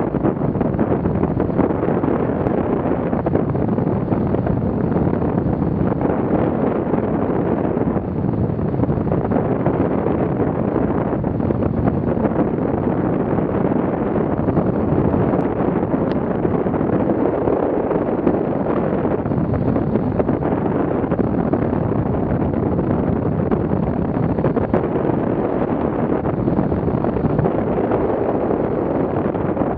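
Steady rushing wind on the microphone of a camera mounted on a hang glider in flight: airflow buffeting the mic at flying speed.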